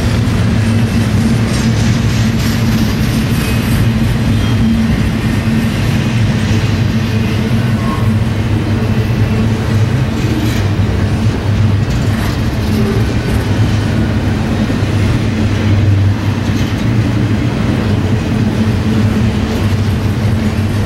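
Double-stack intermodal freight train's container well cars rolling past: a loud, steady rumble of steel wheels on rail.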